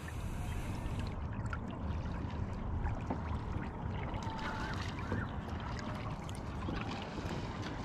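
Water trickling and lapping against the hull and float of an outrigger canoe gliding on a calm lake, a steady wash with faint scattered splashes and a low rumble underneath.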